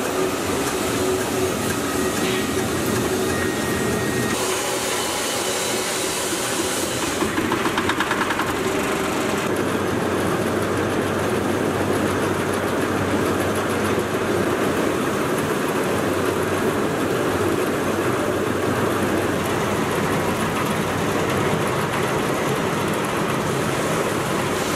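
Compost sifting machine running steadily, a continuous mechanical drone and rattle, with a brighter hiss for a few seconds about four seconds in.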